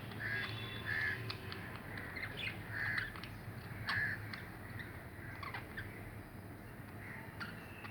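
Two budgerigars calling back and forth: short harsh squawks and quick chirps, several in a row, a call every second or so.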